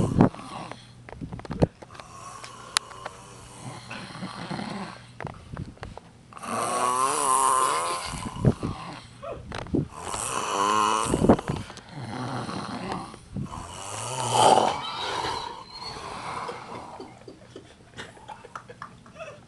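A man snoring heavily in his sleep: three long drawn-out snores in the second half, about one every four seconds, with short snorts and clicks in between.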